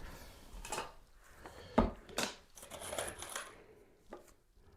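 Light clicks and knocks of small parts and a screw being handled, with the sharpest knock a little under two seconds in and a short rustle of handling around three seconds.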